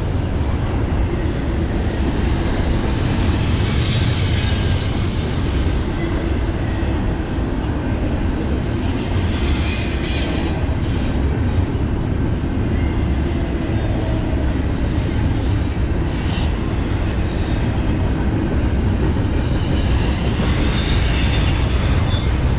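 Train rolling past at close range: a steady, loud rumble of steel wheels on the rails, with brief wheel squeals now and then.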